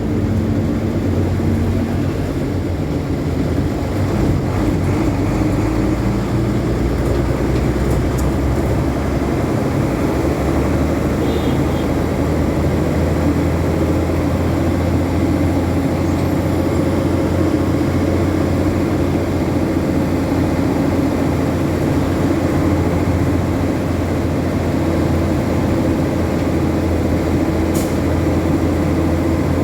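A road vehicle's engine running steadily with road noise, a low even drone that holds the same pitch throughout.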